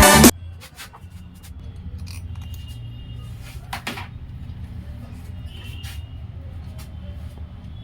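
A background music track cuts off right at the start, leaving a low steady hum with a few scattered clicks and taps, as of small parts or tools being handled.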